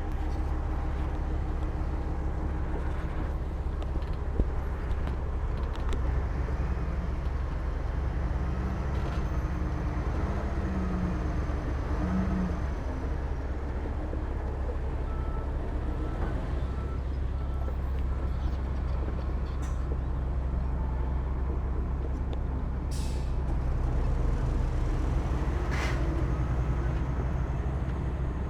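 Heavy diesel earthmoving machinery, a bulldozer and dump trucks, running steadily with a deep engine drone. Two short hisses come near the end.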